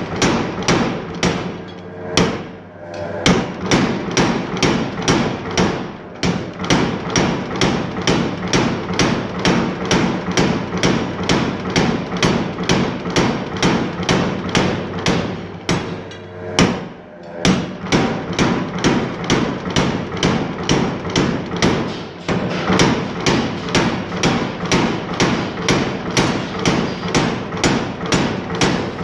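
Power hammer striking a long metal rod held between its dies: a rapid, even run of blows, about four a second, over a steady motor hum. The blows stop briefly twice, once a couple of seconds in and once a little past halfway.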